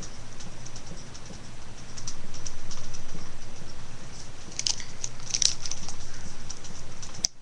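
Plastic and foil packaging rustling and crinkling as it is handled and opened, with a few sharper crackles about two-thirds of the way through, over a steady low hum.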